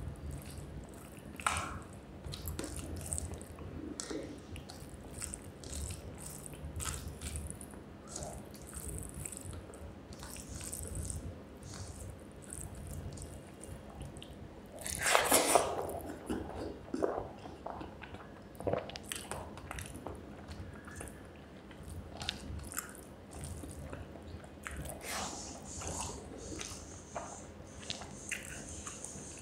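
Close-miked eating of rice with fish curry and brinjal fry: scattered wet chewing and mouth clicks. About halfway through comes a louder noise lasting about a second.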